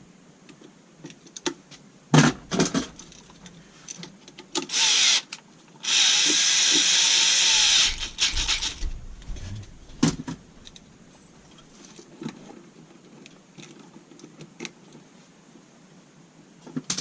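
Hand work on electrical wiring: scattered clicks and knocks of tools, wires and a switch being handled, with a short noisy rasp about five seconds in and a louder, steady hissing noise lasting nearly two seconds near the middle.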